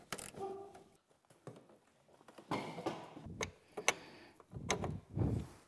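Scattered light clicks and knocks of metal parts being handled as a snowmobile drive shaft and its bearing are fitted into the chaincase, with a duller thump about five seconds in.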